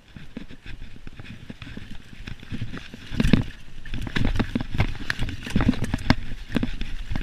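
Mountain bike clattering and rattling as it runs fast down a bumpy, leaf-covered dirt trail, with a dense run of sharp knocks over a low rumble. The knocks grow louder and more frequent about three seconds in as the ride gets rougher.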